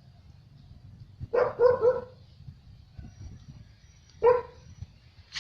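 Dog barking in short pitched calls: a quick run of three about a second and a half in, then a single bark about four seconds in.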